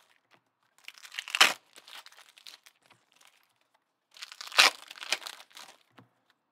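Trading-card pack wrappers crinkling and tearing as packs are handled and ripped open, in two loud bursts, about a second in and again after about four seconds, with smaller crackles between.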